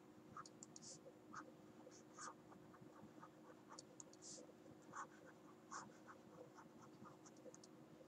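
Faint scratching and tapping of a stylus handwriting on a tablet screen, in short irregular strokes over a steady faint hum.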